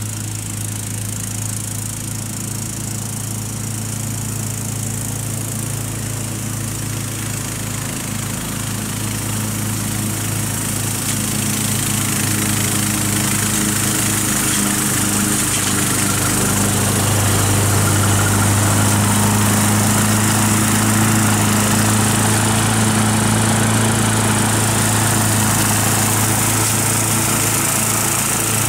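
Wolf G.Cart ride-on mower's engine running steadily while mowing grass, growing louder as the mower comes up close about halfway through and staying loud as it passes.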